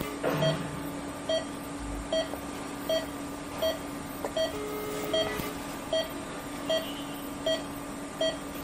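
Patient monitor's pulse-oximeter beeping in time with the heartbeat: short, evenly spaced beeps a little over one per second. Under them is a steady equipment hum, and about five seconds in a fainter steady tone lasts under a second.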